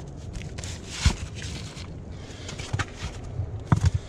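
Flat stones being lifted off the cover of a small oil seep pit, knocking and scraping against the rock: one sharp knock about a second in and a quick cluster of knocks near the end.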